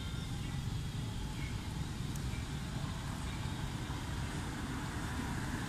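Steady low outdoor rumble with no distinct event, of the kind left by wind on the microphone or distant traffic.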